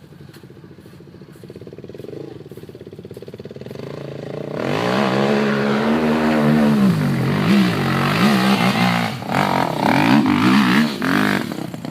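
Off-road vehicle engine building up and then revving hard, its pitch rising and falling over and over as it works through the river crossing; it gets loud about four and a half seconds in.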